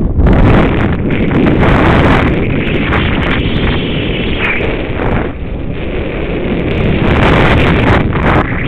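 Heavy wind buffeting the microphone of a wearable camera on a fast snowboard run, mixed with the hiss of the board sliding over groomed snow. The wind dips briefly about five seconds in, then builds again.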